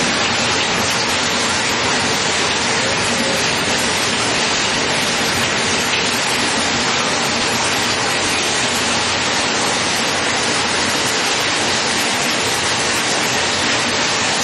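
Semi-automatic glass bottle washing machine running: a steady, loud rush of spraying water.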